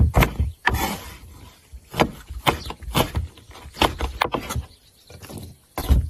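Chinese cleaver chopping garlic cloves and small red chillies on a wooden cutting board: irregular knocks of the blade striking the wood, about one or two a second.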